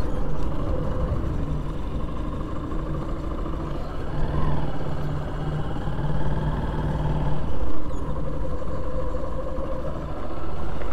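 Motorcycle engine running while the bike is ridden: a steady low drone with a rushing haze of wind and road noise.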